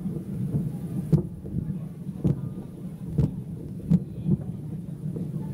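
Aerial fireworks bursting at a distance: a continuous low rumble broken by several sharp booms, roughly one a second.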